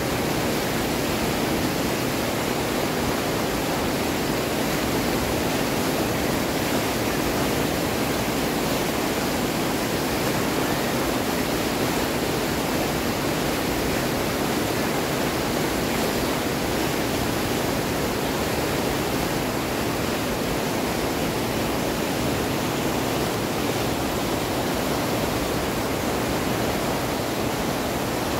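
Loud, steady rushing of a fast mountain river, with no breaks or changes.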